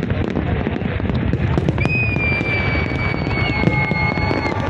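Large fireworks display: a continuous din of crackling and bangs from bursting shells over a low rumble. A long, high, steady whistle that falls slightly in pitch begins about two seconds in and stops just before the end.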